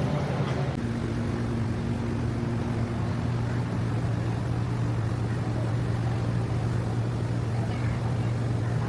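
A steady, low engine drone that holds an even pitch without revving.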